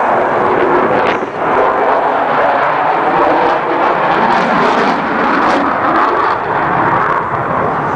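F-22 Raptor fighter jet's twin turbofan engines as it flies overhead: loud, steady jet noise, with a brief dip a little over a second in.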